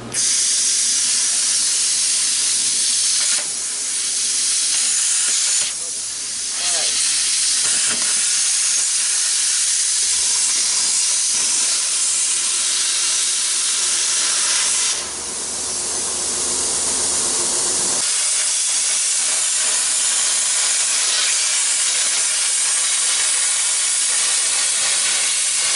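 Plasma cutter hissing steadily as it cuts through the sheet steel of a pickup bed's wheel well, with a few short breaks where the arc stops and starts again.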